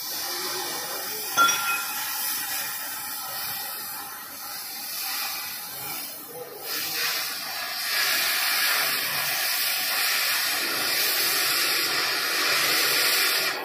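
Oxy-fuel gas cutting torch hissing steadily as its flame and oxygen jet cut through a steel column. There is a single sharp click about a second and a half in, and the hiss grows louder and fuller about eight seconds in.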